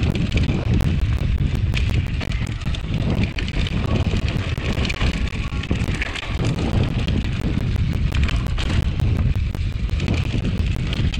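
Mountain bike running fast down a rocky dirt trail: steady wind buffeting on the action camera's microphone with constant rattling and clattering from the bike and tyres over rocks and roots.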